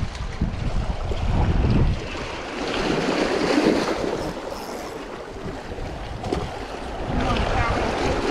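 Small waves washing and splashing against jetty rocks. Wind rumbles on the microphone for the first two seconds.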